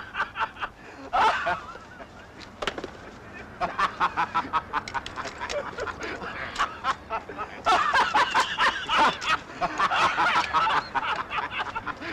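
Laughing in quick repeated bursts, louder in the second half.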